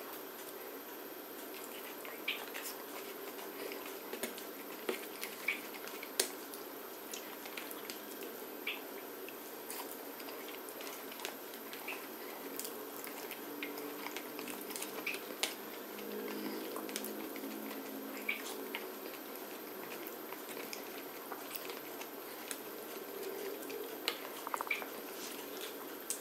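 Close-up eating sounds from a person eating by hand: scattered soft wet smacks, squishes and small clicks from chewing and from fingers working food on a plate, over a low steady hiss.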